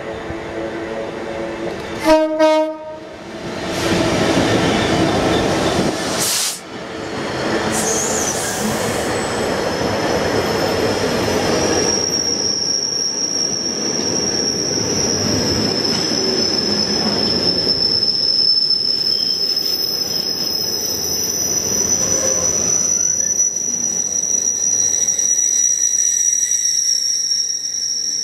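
Class 66 diesel-electric freight locomotive with its EMD two-stroke V12 approaching and passing close by, sounding a short, very loud horn blast about two seconds in. Its container flat wagons then roll past, with a steady high-pitched wheel squeal from about twelve seconds on.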